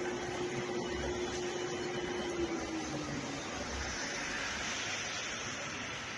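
Sanches Blanes FBM20 bench drill press running at the slowest of its four speeds: a steady motor whir. A faint steady tone sinks slightly and fades out about three seconds in.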